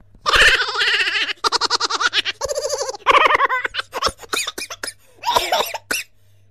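High-pitched human laughter in rapid pulsing bursts, then a run of short quick giggles and another burst of laughter near the end.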